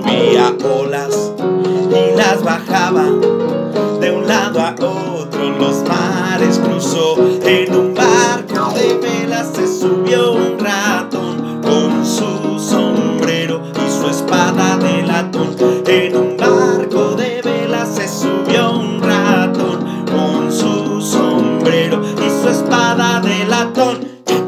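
Electronic keyboard played in a steady rhythm, with a man singing a Spanish children's song over it; the music stops at the very end.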